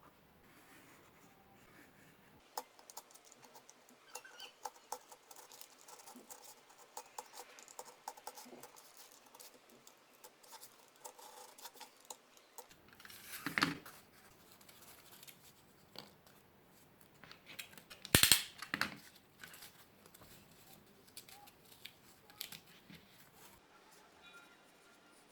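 Cardboard and craft tools being handled at a workbench: a run of small clicks and snips, with two louder scraping sounds about 13 and 18 seconds in.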